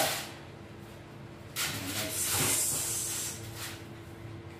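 Aluminium foil crinkling and rustling as it is pulled open around a cooked fish, in two bursts: a short one at the start and a longer, louder one about one and a half seconds in.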